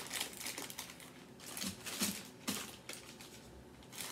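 Plastic snack bags being handled: light crinkling with many small clicks and a few louder taps, going quieter near the end.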